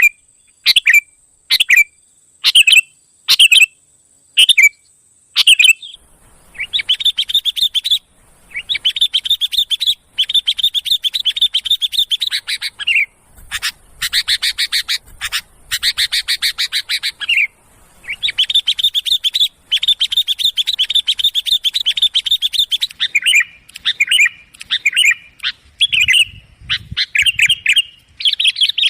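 Sooty-headed bulbuls (kutilang) calling loudly: a string of short, sharp calls about two a second, then from about six seconds in, long runs of rapid chattering, some lasting several seconds, breaking into shorter calls near the end.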